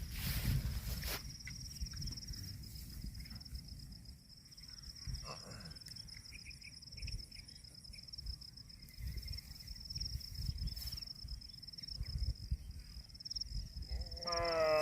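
Steady, high, finely pulsing insect chirring, with a low rumble underneath. Near the end a cow gives one short moo that falls in pitch.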